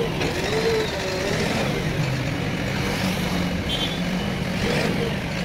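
Diesel engine of a JCB 3DX backhoe loader running steadily while it works at a tree stump.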